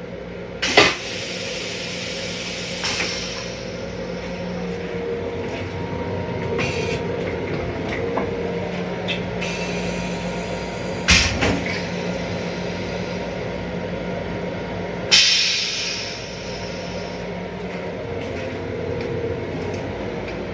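Steady hum of a Long Island Rail Road M7 railcar, heard from inside its restroom. A short loud hiss comes about a second in, a sharp clunk about eleven seconds in, and another hiss about fifteen seconds in that dies away over a second.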